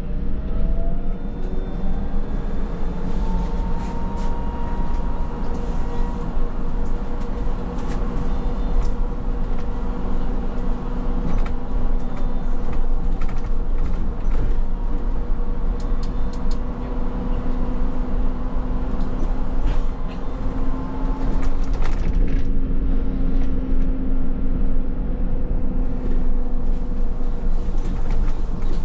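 Škoda 27Tr electric trolleybus under way, with steady running noise. Over the first few seconds the electric traction drive whines upward in pitch as it accelerates, then holds a steady whine.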